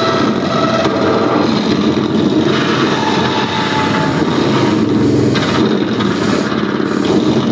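Loud, dense electronic noise music: a continuous rumbling drone, with a hissing layer on top that cuts out and back in several times near the end.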